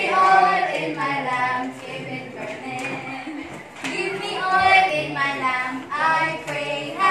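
A group of young voices, mostly female, singing a worship chorus together without instruments.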